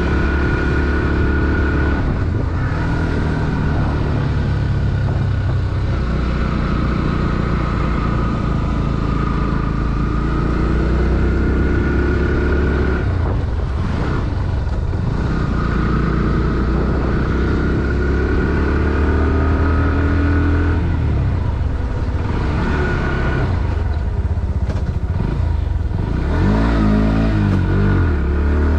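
Bajaj Pulsar NS160's single-cylinder four-stroke engine and exhaust running steadily under load while riding. The engine note drops and changes pitch about halfway through and again around two-thirds of the way in, then rises and falls in quick revs near the end, as with gear changes.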